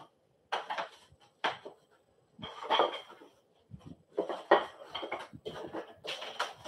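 Bassinet frame parts being unpacked from a cardboard box: plastic wrapping rustling and crinkling in irregular bursts, with knocks and clinks of the parts against each other and the box.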